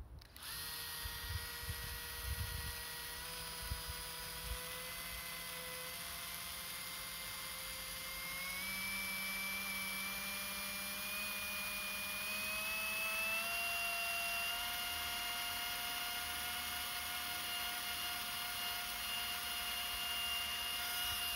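The 12-volt DC motor of an old Hilti cordless drill running with no load, fed through a buck converter from an 18 V battery. It gives a steady whine that rises in pitch in two steps as the converter is turned up toward about 12 volts across the motor.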